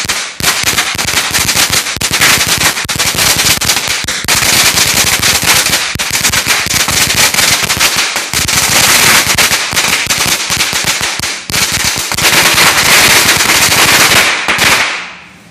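A long string of firecrackers going off in a loud, rapid, continuous crackle of bangs, with a couple of brief lulls, stopping shortly before the end.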